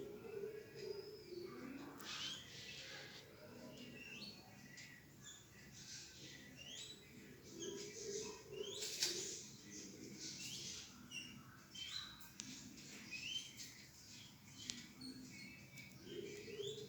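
Garden birds chirping: many short, quick-rising chirps, repeated over and over and overlapping, with a single sharp click about nine seconds in.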